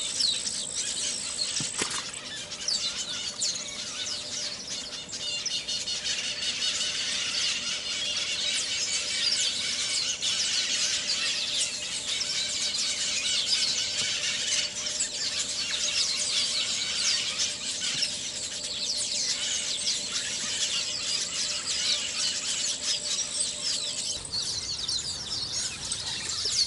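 Many small birds chirping and calling at once: a dense chorus of quick, high-pitched rising and falling chirps that keeps on throughout.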